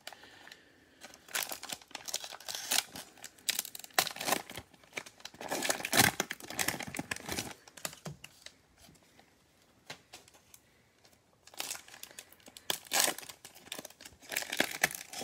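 Plastic wrapper of a trading-card cello pack crinkling and being torn open, in dense bursts of rustling. A quieter spell comes about two-thirds of the way through, then the crinkling starts again.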